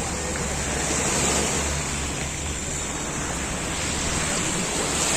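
Steady rush of sea water and waves, with wind buffeting the microphone; it swells gently about a second in.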